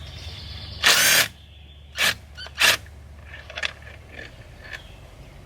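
Impact gun run in three short bursts, the first about half a second long and the next two briefer, followed by a few light clicks of a socket being handled.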